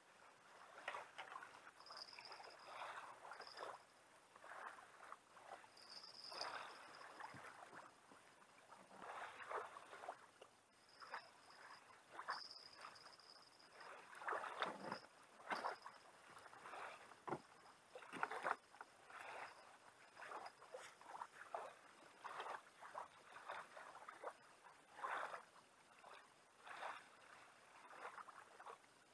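Quiet, irregular soft splashes of small waves lapping against a kayak hull and the shoreline.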